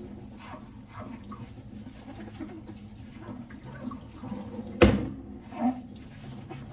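Soft household handling noises over a steady low hum, with one sharp knock a little under five seconds in and a softer thud just after.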